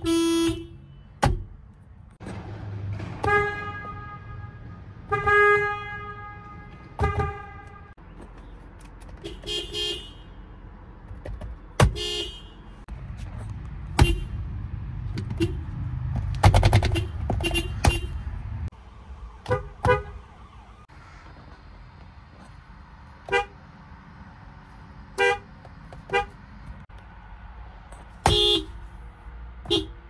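Toyota car horns honked one car after another: about a dozen honks, a mix of short taps and presses lasting about a second, each a steady pitched blare.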